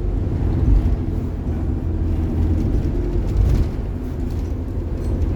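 Bus engine and road rumble, a steady low drone with a faint hum above it.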